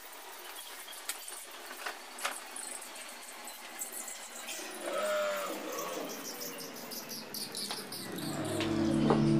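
Broom sweeping a tiled floor, with scattered light scratches and taps of bristles and dustpan, and a short chirp about five seconds in. Soft music fades in near the end.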